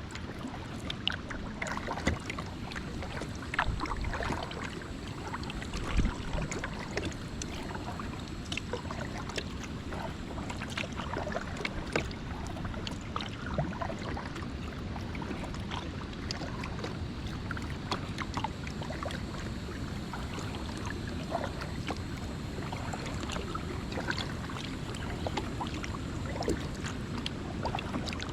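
Kayak on a river: water splashing and dripping with irregular paddle strokes against a steady low noise, with a few louder splashes in the first few seconds.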